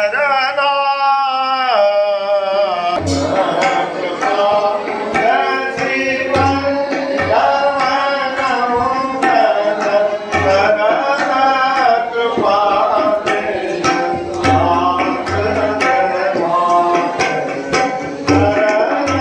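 Devotional song: a voice singing alone at first, then drum strokes and deep thumps joining about three seconds in and keeping a steady beat under the singing.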